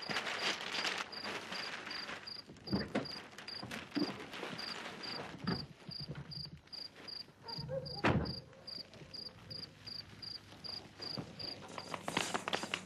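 Crickets chirping in a steady rhythm, about three chirps a second, with a few soft thumps over them, the loudest about eight seconds in. The chirping stops near the end.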